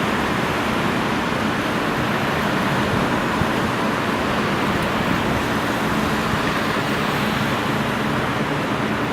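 Steady running rumble of a Toyohashi Railway Mo780-class streetcar, with a faint constant hum over an even noise.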